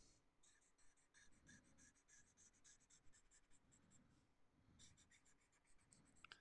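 Faint scratching of a felt-tip marker on paper, drawn in rapid short strokes, with a brief pause about four seconds in.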